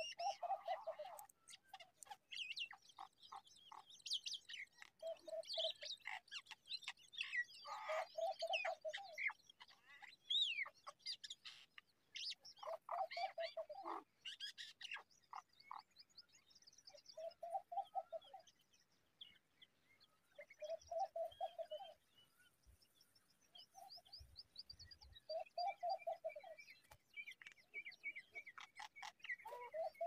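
Birds chirping with quick, high calls and trills. A short, lower trilled call repeats about every four seconds.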